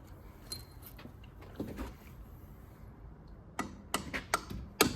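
Hammer tapping a punch to drive a pin out of a Ford 9-inch differential: faint clinks and handling at first, then a quick run of about six sharp metal strikes in the last second and a half.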